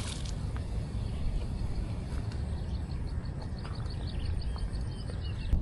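Wind buffeting the microphone with a steady low rumble. A quick run of high chirps, about six a second, comes in around the middle, with a few single chirps near the end.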